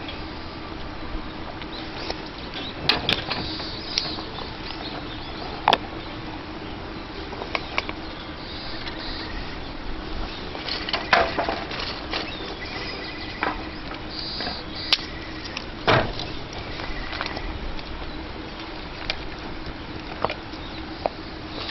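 Small wood fire crackling in a palm-sized camp fire stand: irregular sharp pops and snaps over a steady low hiss.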